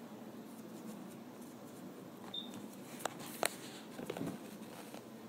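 Quiet handling noise with a few light clicks and taps about three to four seconds in.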